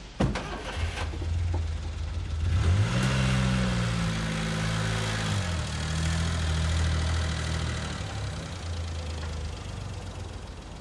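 A car door shuts with a sharp knock, then the car's engine starts and runs. Its revs rise about three seconds in, then it runs steadily and fades as the car drives away.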